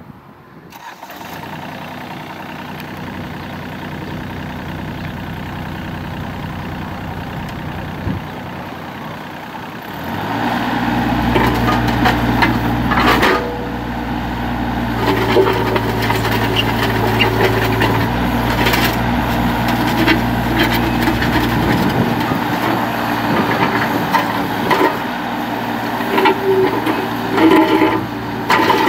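John Deere 27D mini excavator's diesel engine running, first at a lower speed, then throttled up to a higher steady speed about ten seconds in. Occasional knocks follow as the arm and bucket are worked.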